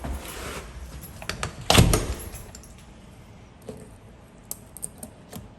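Handling noises from work on a wooden door: a loud knock with a short rattle about two seconds in, then a few light clicks and taps.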